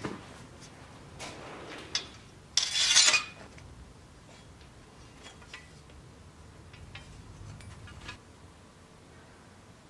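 Steel cross-guard being slid along a sword blade, clinking and scraping metal on metal. The loudest sound is a short grating scrape about two and a half seconds in, followed by a few light clicks.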